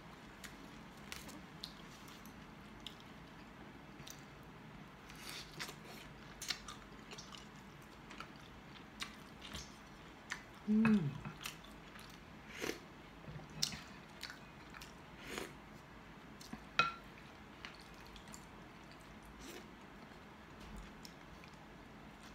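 A person eating soup: chewing, wet mouth smacks and sips from a wooden spoon, in scattered short clicks. A short hum of the voice about eleven seconds in is the loudest sound.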